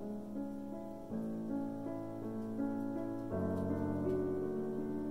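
Background music: a gentle piano-style keyboard tune of held chords, with new chords coming in about a second in and again past three seconds.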